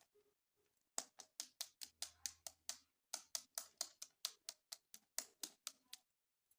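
A rapid, even run of sharp clicks, about five a second for some five seconds, with a brief pause midway.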